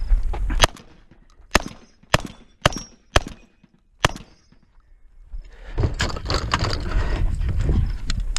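Six gunshots from a semi-automatic firearm: one about half a second in, four more about half a second apart, and a last one about a second later. Then a steady rumbling, rustling noise.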